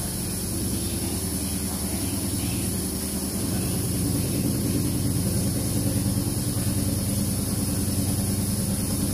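Hapfo Performer 400-FU wood lathe spinning a large off-balance wooden blank at up to about 595 rpm with no balancer compensation, running with a steady hum and a fast, even pulsing from the imbalance. It gets slightly louder about four seconds in.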